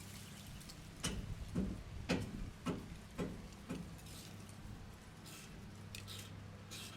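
A run of about six sharp knocks, roughly half a second apart, each with a short ringing tail, over a steady low hum; a few fainter ticks follow later.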